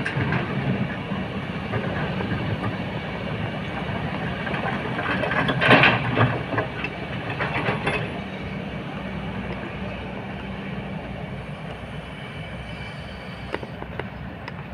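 Kobelco SK210 long-reach excavator's diesel engine running steadily under hydraulic load. A louder, rougher stretch about five to six seconds in comes as the bucket works the rock pile.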